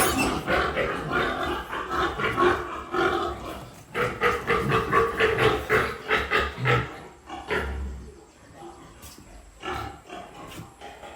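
Piglet squealing loudly as it is picked up and handled: harsh, rapidly repeated screams that die down after about seven seconds, leaving only a few faint calls.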